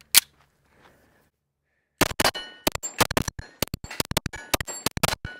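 A single sharp metallic click of the 9mm Canik TTI Combat pistol being loaded, then, from about two seconds in, rapid pistol fire in quick strings of shots, about four to five a second, with the hit steel plates ringing.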